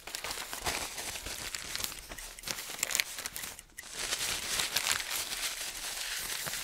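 Dense crackling static with hiss and many small clicks, dropping out for a moment a little after halfway.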